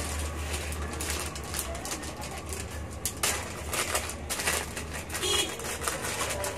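Clear plastic packaging bag crinkling and rustling in irregular crackles as it is handled and snipped open with scissors, over a steady low hum.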